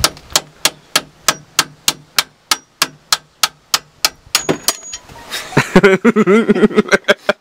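Hand ratchet wrench clicking at an even pace, about three clicks a second, as a bolt is turned on a car's front suspension. A man's voice comes in near the end.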